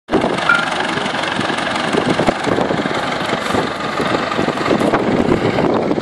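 Vintage tractor engine running steadily.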